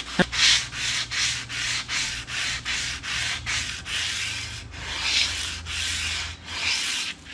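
A strip of 240-grit sandpaper, wetted with transmission fluid, is pulled back and forth by hand around the outer band surface of a 200-4R automatic transmission's direct drum, a rasping stroke about twice a second. This is light wet sanding to take the glaze off the drum, not to remove metal.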